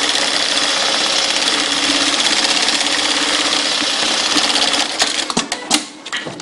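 Industrial pattern-sewing machine stitching through layered nylon webbing at a fast, steady rate. The stitching stops about five seconds in, followed by a few sharp clicks.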